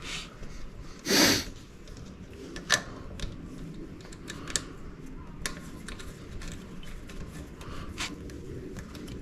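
Scattered light clicks and taps of bolts, parts and hand tools being handled, with one louder short hissing burst about a second in.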